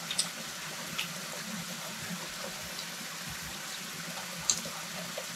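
Steady rushing hiss of flowing water, with a few faint clicks near the start, about a second in, and again near the end.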